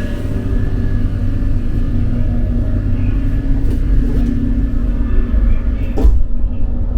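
Steady low rumble of a running vehicle, with a steady hum in it. About six seconds in, the higher hiss above the rumble cuts out suddenly.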